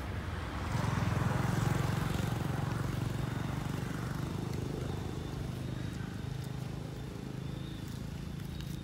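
A low, steady engine hum that swells about a second in and then slowly fades over the next few seconds, as of a motor vehicle passing.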